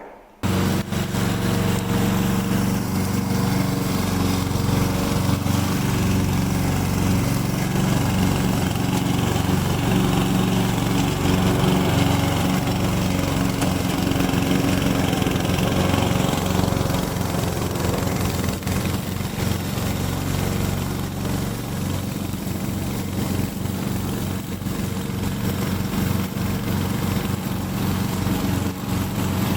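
Gasoline engine of a remote-controlled lawn mower running steadily.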